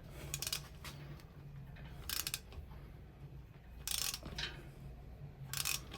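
Hand socket ratchet clicking in short bursts, about four times, as 12-point nuts are worked loose during an engine teardown, over a low steady hum.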